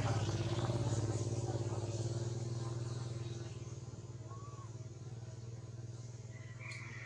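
A motor vehicle's engine running steadily, its hum slowly fading.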